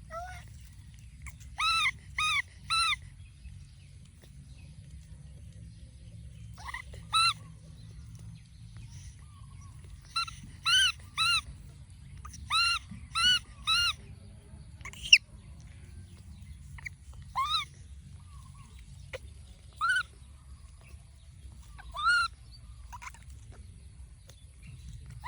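Baby monkey giving about fifteen short high-pitched cries, often two or three in quick succession, with pauses between the clusters.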